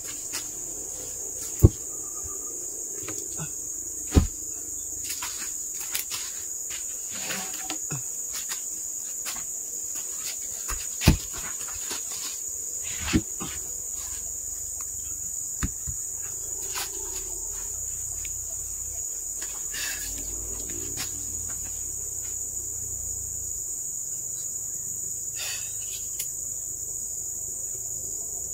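A steady high-pitched chorus of insects, with a few sharp wooden knocks as heavy ironwood slabs and offcuts are moved and dropped.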